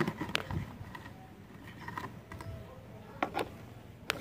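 Handling of a plastic Dilophosaurus toy and its cardboard box as it is lifted out: scattered light clicks and rustles, with a couple of sharper clicks near the end.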